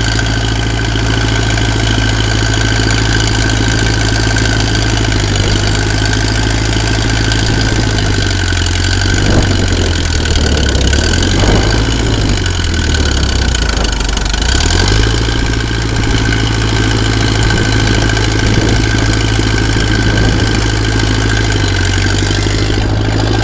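International Harvester 350 Utility tractor's four-cylinder gasoline engine running steadily. About a third of the way in its speed sags for several seconds and then recovers, with a smaller dip near the end, as it is loaded down, plausibly by the hydraulic power-steering pump straining to turn the front wheels.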